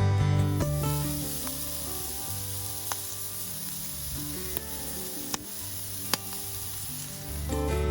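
Food frying in a pan over a campfire: a steady sizzle with a few sharp pops.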